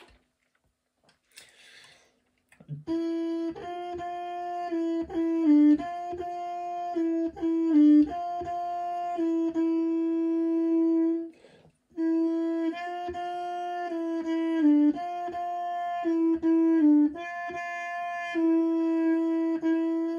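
Solo trumpet playing a tuba part in its low register: phrases of short notes stepping between a few neighbouring pitches, each phrase ending on a long held note. It breaks off briefly near the middle and plays the phrase again.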